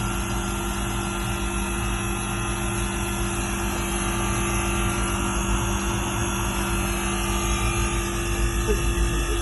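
Air-conditioning unit running with a steady mechanical hum, with a gentle pulsing creeping in near the end.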